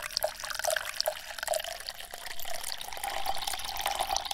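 Trickling, dripping water sound effect, thin with nothing below the midrange, dense with small clicks and plinks, starting suddenly.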